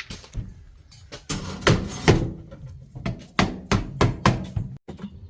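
Hand tools striking hard material: about a dozen sharp, irregularly spaced knocks, like hammering.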